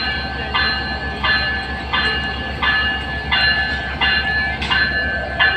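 Train at a station: a low steady diesel rumble under a repeating high ringing tone that restarts about every 0.7 seconds.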